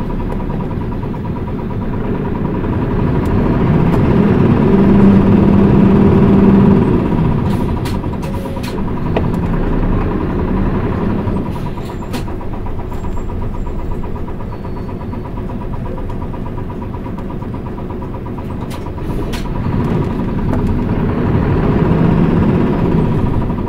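Inside a Mitsubishi Fuso Aerostar PKG-MP35UM city bus under way: its diesel engine runs with a steady rumble, pulls louder for a few seconds about a quarter of the way in, eases off, and builds again near the end. A few short clicks and rattles come from the cabin.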